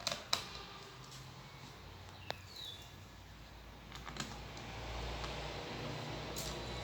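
A few scattered sharp clicks and taps from hands working on a laptop, the loudest two in the first half-second.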